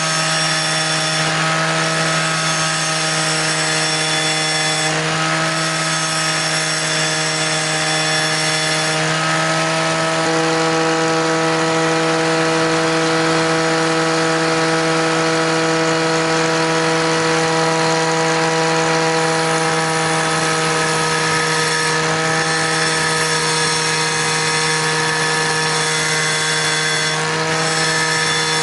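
Angle grinder running steadily with a pitched motor whine, while a steel screwdriver bit spun in a cordless drill is ground against its abrasive disc to form an awl point. The pitch and tone shift a few times as the load on the disc changes.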